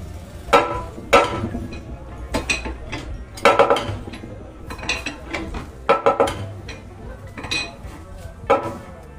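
Hydraulic jack press being pumped to push the spindle out of an angle grinder's gear and broken bearing: about ten sharp metal clanks and clinks with a short ring, at uneven intervals of roughly one a second.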